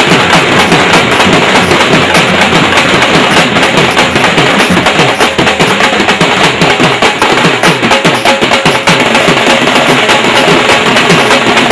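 Dhol, the double-headed Indian barrel drum, beaten loud and fast in a dense, driving rhythm of sharp strokes, heard within music.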